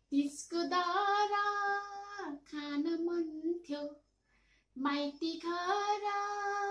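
A woman singing two phrases, each drawn out on a long held note, with a short pause a little past halfway.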